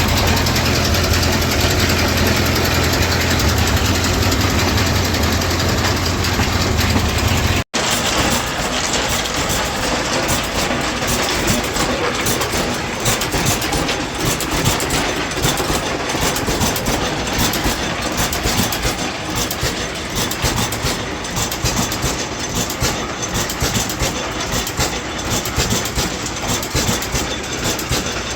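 Sawmill running, powered by a 1931 Ford Model A four-cylinder engine through a flat belt: a steady low engine hum, then a sudden break about eight seconds in, after which the sound is a busier, fluttering mechanical clatter.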